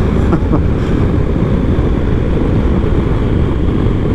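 BMW R1250GS Adventure's boxer-twin engine running at about 50 mph, mixed with wind and road noise in a steady low rumble on the bike-mounted camera's microphone.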